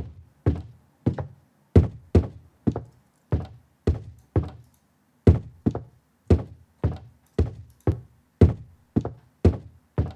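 A run of footstep sound effects on a hard floor, about two dull steps a second, in a walking rhythm. Each step is a slightly different variation of the same sample, made by randomizing and shuffling it to avoid repetition.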